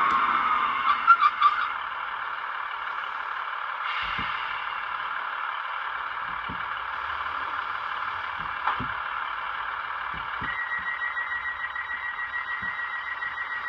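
An N gauge model locomotive's DCC sound decoder playing locomotive sounds through its tiny built-in speaker: a steady engine-like running sound, a few loud short notes about a second in, and a pulsing beep-like tone starting near the end. Scattered sharp clicks sound over the running sound.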